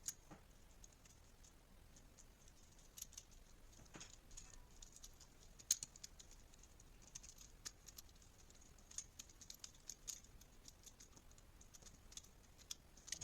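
Near silence, broken by scattered faint, irregular clicks and light taps, the sharpest about six seconds in.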